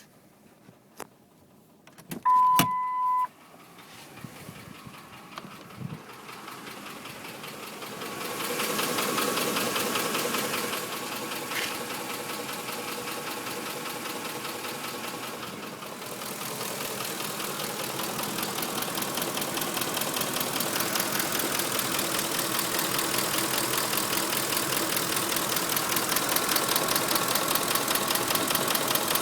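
2005 Ford F-150's 5.4 L V8 starting and then idling with a fast, even tapping/knocking, which the owner suspects is worn cam phasers. A click and a short electronic chime come just before the engine starts.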